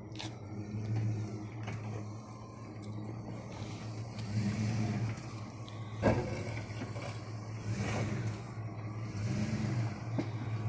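Jeep Grand Cherokee engine running at low speed while crawling over rocks. The revs rise and fall in short pulls three times in the second half, and there is a sharp knock about six seconds in.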